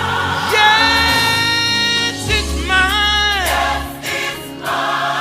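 Gospel singers holding a chord in harmony with band accompaniment on the refrain, the voices bending down in pitch about halfway through.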